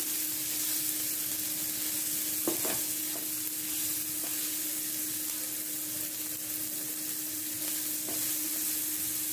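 Mixed vegetables sizzling in oil in a nonstick frying pan while a silicone spatula stirs and scrapes them around, being sautéed only briefly so they stay crunchy. A steady hum runs underneath, and the spatula knocks once against the pan about two and a half seconds in.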